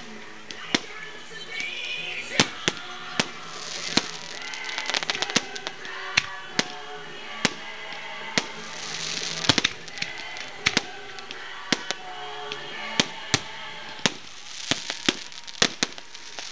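Fireworks going off in sharp, irregular bangs, often one to three a second, with stretches of hissing crackle between them, over music.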